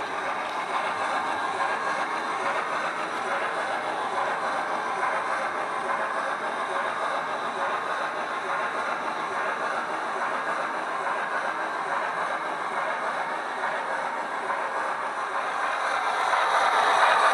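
Simulated steam locomotive sound from a LokSound V5 sound decoder, played through the small tender speaker of a Hornby OO-gauge LMS 8F model. It runs steadily and grows louder near the end.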